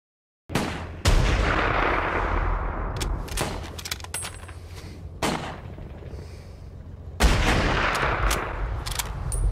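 Gunfire: a series of shots, each trailing off in a long echoing rumble, starting after half a second of dead silence, with the heaviest shots about a second in and about seven seconds in.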